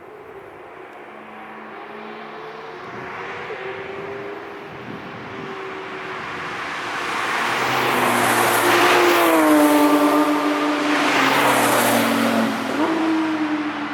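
Cars approaching and driving past at speed: the engine note grows steadily louder, then drops in pitch as a car passes about two-thirds of the way in, with a second engine note close behind near the end.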